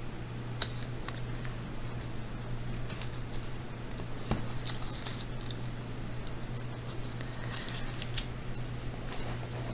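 Faint scratchy clicks and rustles of hands working a small polymer clay piece on a wooden skewer over patty paper on a tile surface, with a sharper click near the end. A steady low hum runs underneath.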